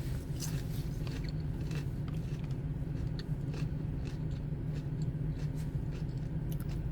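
Close-up chewing and biting of food, with small clicks and crunches scattered throughout, over a steady low hum from a car.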